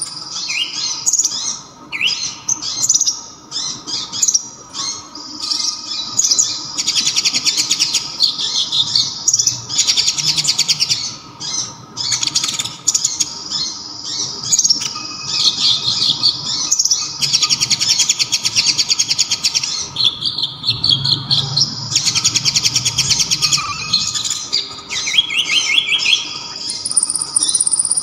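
Kolibri ninja (konin), a small sunbird, singing a high, loud song. Quick chirps and sweeps alternate with dense, fast trills that each last a second or two, the song being filled with kapas tembak phrases.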